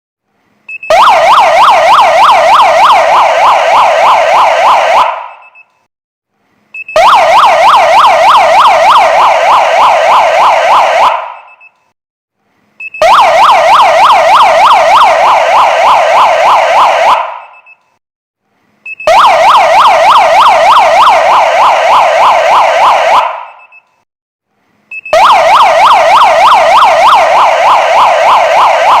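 Kingvox SPMX electronic siren switched on and off five times: each time a short high beep, then a loud, fast warbling wail of about four seconds that cuts out and dies away over half a second.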